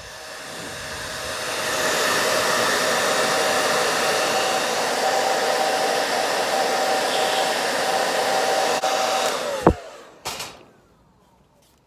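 Handheld hot-air blower running, shrinking heat-shrink tubing on the new wiring. It spins up over the first couple of seconds, runs steadily with a whine under the rush of air, and is switched off near the end, its whine dropping away.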